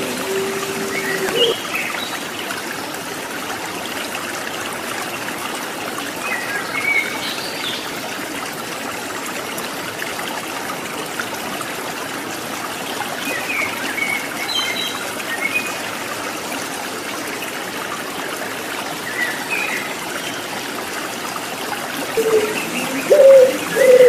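Steady trickling water with scattered high chirps of small birds. A low puter pelung (ringneck dove) coo trails off about a second and a half in, and the dove starts cooing again near the end, which is the loudest sound.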